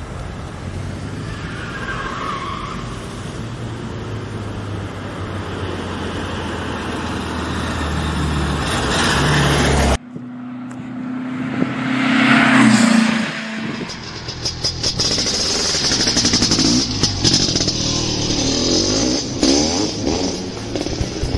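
Car engine running with a steady low drone that grows louder and climbs in pitch as the car speeds up, then cuts off abruptly. A second stretch of engine sound follows, revving up to a peak and falling away.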